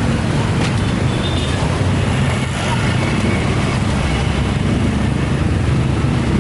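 Steady low rumble of motor vehicle engines in road traffic.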